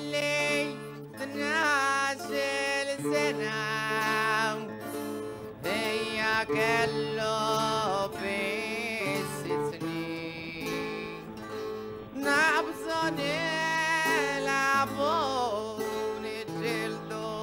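Maltese għana folk singing: a single voice in wavering, ornamented, free-flowing melodic lines over acoustic guitar accompaniment.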